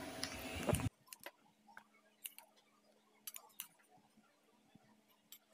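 A few faint, irregularly spaced clicks of a steel spoon against a steel bowl as potato curry is spooned out.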